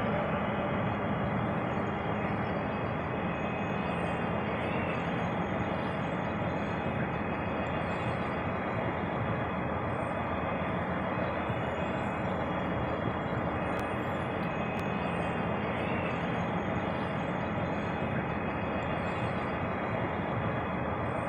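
ROPA self-propelled sugar beet harvester running steadily: a continuous, even mechanical rumble with a faint steady high whine.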